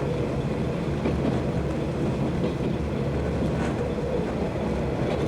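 Iwate Development Railway KiHa 200 diesel railcar running along the line: a steady low engine drone mixed with wheel and rail noise, with a few faint clicks from the track.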